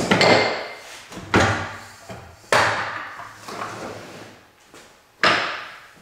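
Table saw's aluminium rip fence being slid along its rail and knocked into position by hand: four sharp clunks, each trailing off over about a second.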